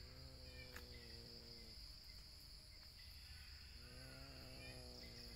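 Faint insect chorus of crickets: a steady high-pitched drone. A low steady hum rises over it twice for about a second and a half, at the start and again about four seconds in, with a few faint bird chirps and a single click about a second in.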